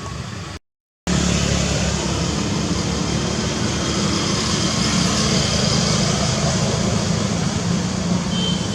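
A loud steady rumbling noise with no clear pitch, heaviest low down. It starts abruptly about a second in, after a short moment of dead silence, and a brief thin whistle-like tone sounds near the end.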